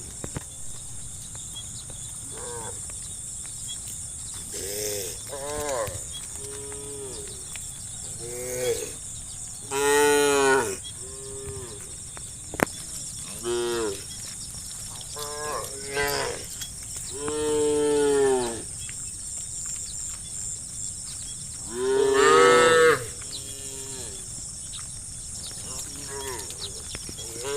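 A herd of cattle mooing again and again: many separate calls, some overlapping, with the loudest and longest moos about ten, eighteen and twenty-two seconds in. A steady high-pitched hiss runs underneath.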